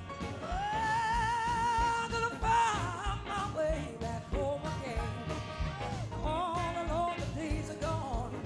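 Live blues-rock band: a woman singing lead over drums and electric guitar. A long held note with vibrato comes in about half a second in, followed by shorter looping melodic phrases over a steady drum beat.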